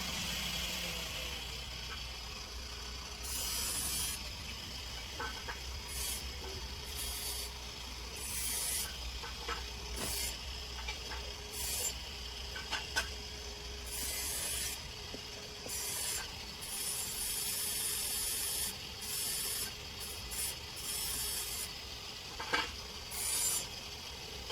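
Hand work scraping and rubbing on hard plastic in irregular strokes of uneven length, with a few sharp clicks, over a steady low hum.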